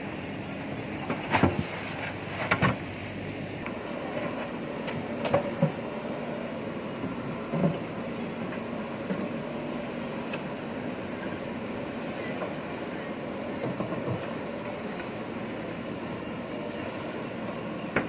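JCB backhoe loader's diesel engine running steadily as the backhoe bucket works earth in a trench, with several sharp knocks and clanks from the bucket and arm, the loudest about a second and a half and two and a half seconds in, and others scattered through.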